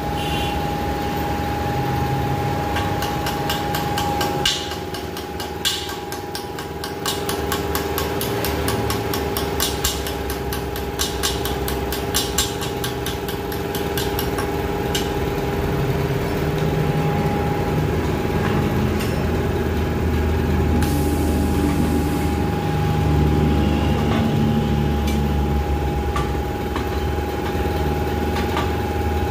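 Steady hum of workshop machinery with a run of light, regularly spaced metallic clicks in the first half, as a wrench works the metal valve stem out of an alloy rim on a tyre changer. The low hum grows heavier in the second half.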